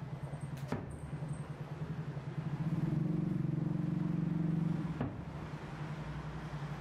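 A steady low motor hum that pulses throughout and grows louder for about two seconds in the middle. A sharp distant firework bang comes about a second in, and a second thud comes about five seconds in.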